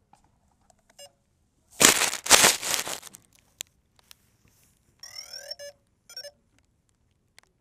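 A loud rustle of handling noise on the GoPro camera for about a second, then a short run of electronic beeps with sweeping pitch about three seconds later, followed by one shorter beep.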